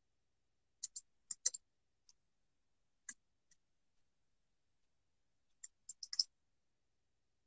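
Faint, sharp clicks in small groups: two pairs in the first second and a half, single clicks around two, three and three and a half seconds, and a quick run of four or five near six seconds.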